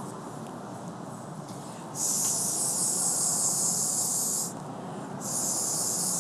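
Blow pen, a mouth-blown airbrush marker, spraying ink in two long hissing puffs of breath: one about two seconds in lasting a couple of seconds, the next starting about five seconds in.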